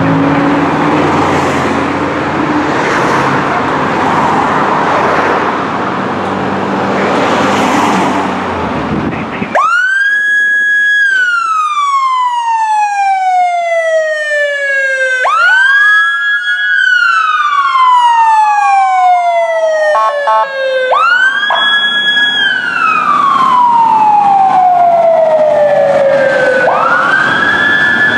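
Fire engine's diesel engine running loudly for about the first nine seconds. Then its siren comes in: it climbs quickly to a high pitch, holds briefly and slowly falls away, four times over.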